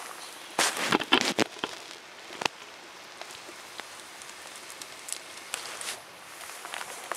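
Wood fire crackling, with scattered sharp pops and a quick run of louder snaps about half a second in and one more snap around two and a half seconds.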